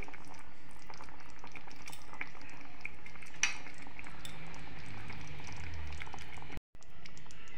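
Cornflour-thickened vegetable manchurian gravy boiling in a pan, bubbling steadily with many small popping bubbles. The sound cuts out briefly near the end.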